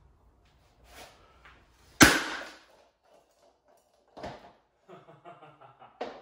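A single heavy axe blow lands on a Fulmer modular motorcycle helmet about two seconds in, a loud sharp crack as the shell splits open. It is followed by a few lighter knocks and rattles as the axe and broken pieces settle on the wooden floor.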